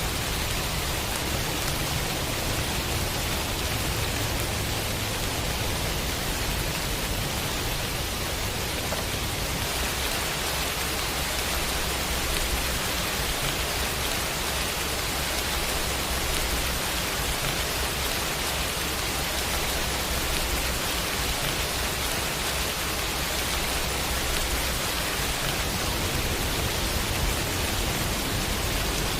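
Heavy rain falling steadily, a dense even hiss of drops, with a low rumble underneath that shifts about ten seconds in and again near the end.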